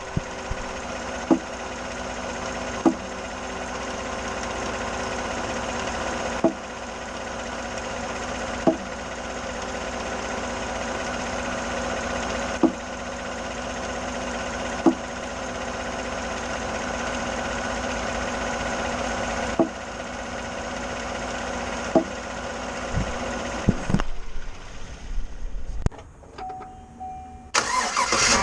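Sharp single pops from the steering of a 2014 GMC, coming every couple of seconds over the steady hum of the idling engine while the wheel is turned with the vehicle stopped. This is the fault the owner is chasing after replacing the electric power steering motor. Near the end the hum drops away and a loud rushing noise starts.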